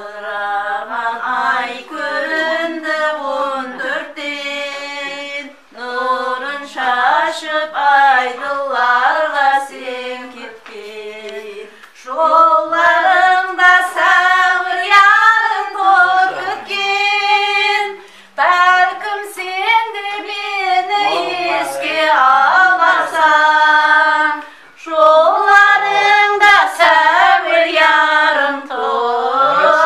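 Female voices singing a Karakalpak folk song unaccompanied, in phrases of about six seconds with held, ornamented notes and brief breaths between phrases.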